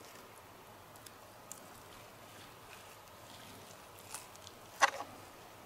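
Fillet knife skinning a fish fillet on a wooden board: faint soft handling sounds and small ticks, with one sharp knock on the wood about five seconds in.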